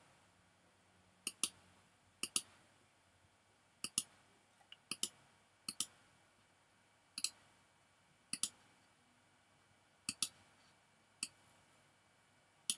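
Computer mouse button clicking, about ten clicks spaced irregularly roughly a second apart, each a quick press-and-release pair, placing points of a drawn mask one by one.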